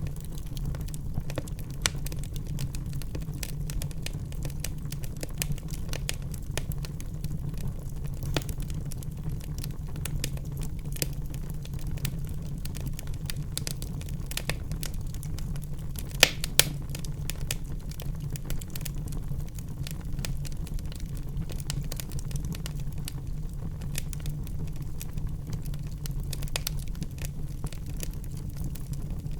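Wood fire burning in a fireplace: a steady low rumble of the flames with irregular crackles and small pops throughout, and two louder pops about halfway through.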